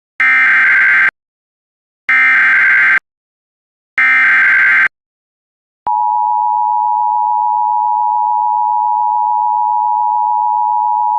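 Emergency Alert System alert signals: three buzzing bursts of SAME digital header data, each about a second long with a second of silence between. About six seconds in, the EAS two-tone attention signal starts, a loud, steady dual tone that holds.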